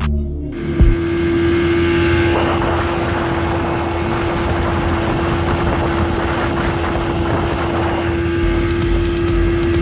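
1984 30 hp two-stroke outboard motor running at a steady high speed, with one held, unchanging tone over its noise. A short knock sounds just under a second in.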